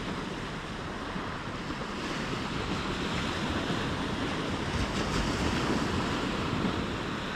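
Small waves breaking and washing up a gravel beach, with wind on the microphone; the surf grows a little louder in the second half.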